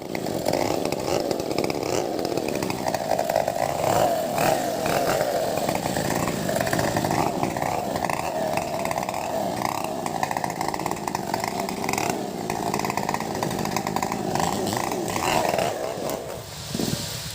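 Freshly sharpened STIHL chainsaws running at high revs while cutting teak, the engine note wavering as the chain bites into the wood. About a second before the end the sound eases off briefly.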